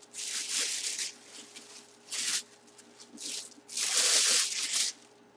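Packaging being handled and pulled open, rustling and crackling in four separate bursts, the longest near the end.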